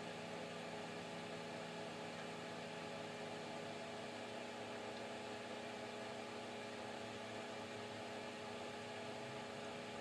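Steady hum of several fixed tones over a faint hiss: room tone with no distinct event.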